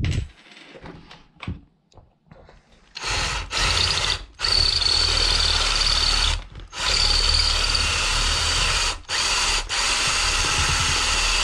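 A few handling clicks and knocks, then from about three seconds in a cordless drill with a 5/16-inch bit runs in several long bursts with brief pauses, drilling out the rivet that holds the cuff to an inline skate's shell.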